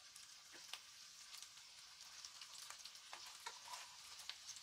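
Vegetable Manchurian balls frying in hot oil in a pan: a faint, steady sizzle with scattered crackling pops.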